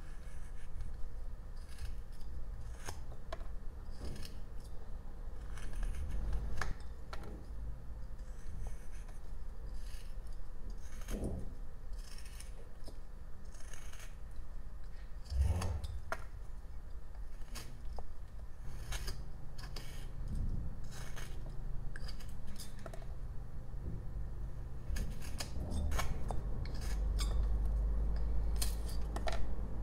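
Whittling knife slicing shavings from a jelutong block: a run of short, irregular cuts and scrapes, with a low rumble near the end.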